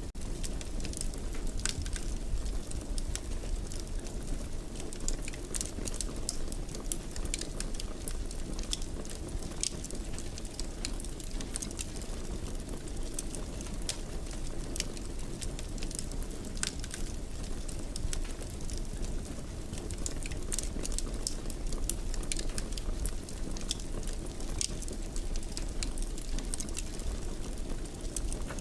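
Wood fire burning in a fireplace: a steady low rumble with frequent small, sharp crackles and pops scattered throughout.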